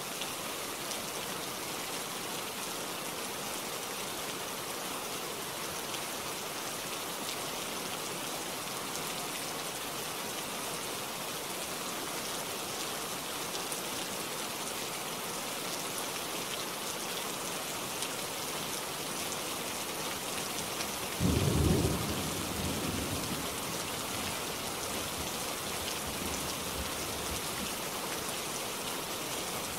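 Steady rain falling, with one roll of thunder about two-thirds of the way through that is the loudest sound and fades over a couple of seconds.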